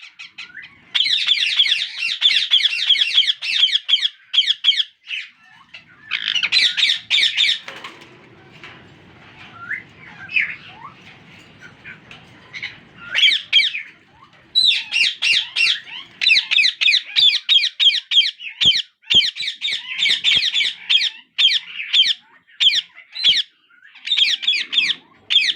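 Indian ringneck parakeet chicks begging for food with rapid, harsh squawking calls in bursts of a few seconds each, a sign of hungry chicks wanting to be fed by the parent. The calls fall quieter for a few seconds in the middle, then start up again.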